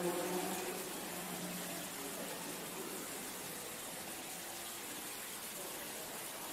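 Steady rush of water running over the granite steps of an indoor stone garden, with faint visitors' voices briefly at the start.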